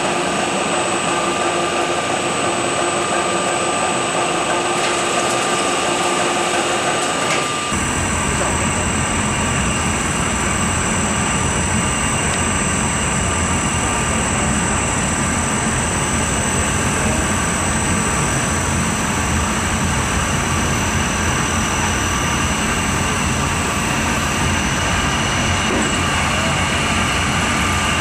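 A biomass gasifier plant running: a steady mechanical drone from its blower fans and syngas burner, with a few steady high whines. About eight seconds in the sound switches abruptly to a deeper, fuller drone.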